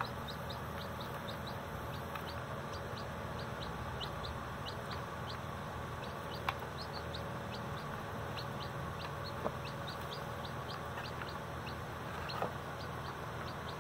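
Baby chicks peeping: a steady stream of short, high, falling peeps, a couple a second, with a few sharper louder ones now and then.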